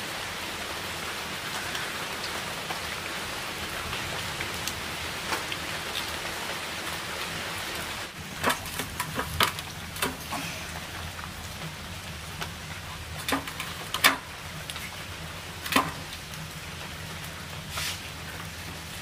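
Steady rain for about the first eight seconds. Then the rain noise drops and scattered sharp clicks and taps follow, the loudest a few seconds before the end.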